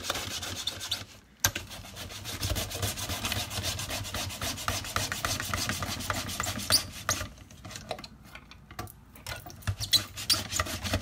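Bell pepper pushed rapidly back and forth across the blade of a Pampered Chef Simple Slicer, a handheld mandoline, using its food guard: a quick run of rasping slicing strokes, with a short pause about a second in.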